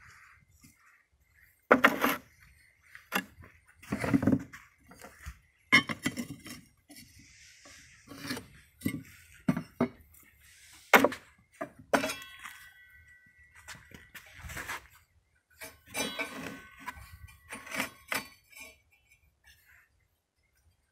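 Irregular knocks and clinks as a brick and the wooden pendulum arm of a homemade angle-grinder brick-cutting jig are handled, moved and set down, with the grinder not running. A short ringing tone comes about twelve seconds in.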